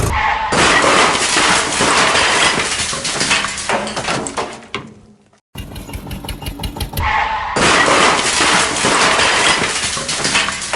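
Crash sound with shattering and clattering, fading out after about four and a half seconds, then beginning again identically after a brief silence: a crash sound effect played twice.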